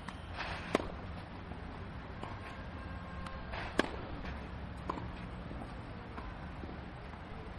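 Tennis ball struck hard by a racket, two sharp hits about three seconds apart, the second the louder, with a few fainter knocks between them over a steady low background noise.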